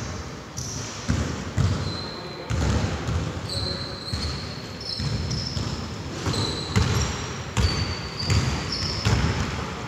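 Basketball being dribbled on a court: repeated bounces, roughly one every half second to a second, mixed with short high squeaks from sneakers on the floor.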